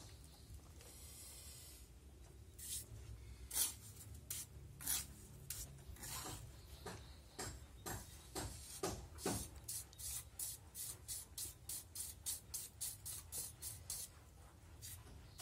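Short scraping strokes on soft cement-sand mortar as an artificial rock is shaped and textured. They come sparsely at first, then in a quick regular run of about three strokes a second near the end.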